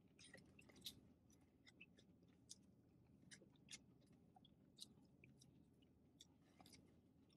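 Faint chewing of juicy chicken: a few soft, scattered mouth clicks over near silence.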